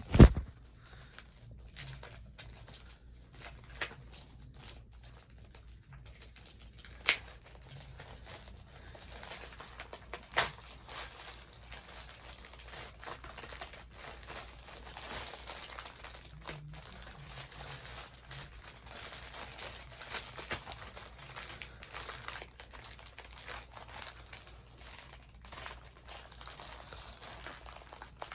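Mailing package being opened by hand: irregular crinkling, rustling and tearing of the packaging, with a few sharp knocks.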